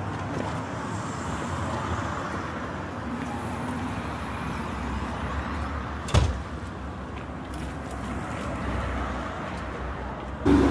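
Vintage Ford F-series pickup truck's engine running low and steady as the truck drives slowly past and turns, with one sharp knock about six seconds in.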